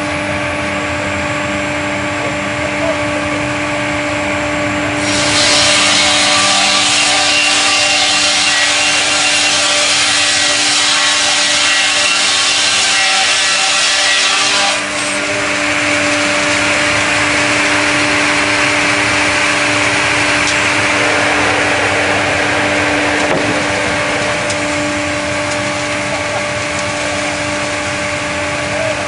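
StrojCAD KR-58 twin-blade horizontal circular sawmill running with a steady hum while its blades saw through a log. About five seconds in the sawing turns louder and higher-pitched, easing back to a lower, steadier cutting noise about fifteen seconds in.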